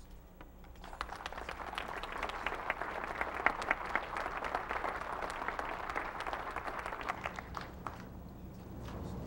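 A crowd applauding at the close of a speech. The clapping builds about a second in and dies away near the end.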